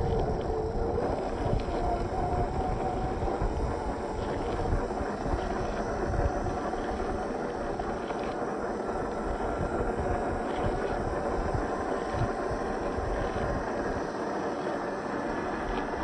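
1/10 scale RC crawler on an MST CFX chassis, with a 540 23-turn brushed electric motor, driving over gravel: a thin, shifting whine from the motor and gearbox over a rough low rumble.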